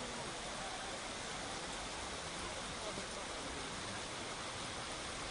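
Heavy rain, a steady even hiss.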